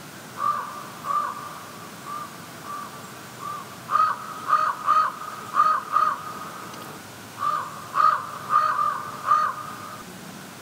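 A crow cawing over and over: about fifteen short calls on the same pitch, in loose runs, with a faint steady tone behind them.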